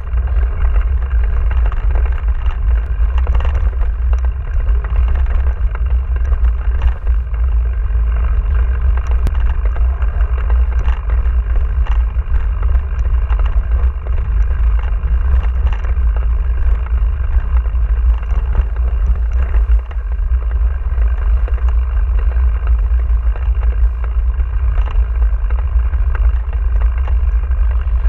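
Ride noise from a Giant Trance 27.5 mountain bike on a dirt farm track: a loud, steady low rumble from wind and vibration on a handlebar-mounted camera, with tyre noise and scattered small clicks and rattles from the bike.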